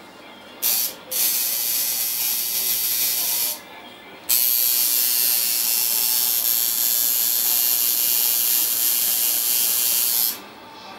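Electric tattoo machine running in stretches with a high, hissy buzz: a brief burst about a second in, a run of a couple of seconds, a short pause, then a steady run of about six seconds that stops near the end.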